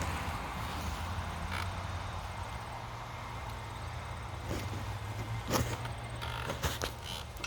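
18 hp V-twin engine of a Murray riding mower idling with a steady low hum, with a few sharp clicks in the second half.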